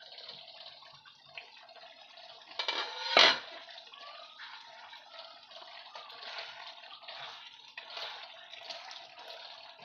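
Thick paneer curry simmering and bubbling in a kadai with its glass lid lifted off. About three seconds in comes a louder clatter, then a wooden spatula stirs the gravy.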